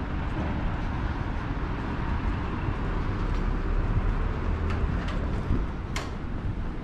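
City street traffic noise: a steady, fluctuating rumble of cars passing on the road, with a few short clicks, the sharpest about six seconds in.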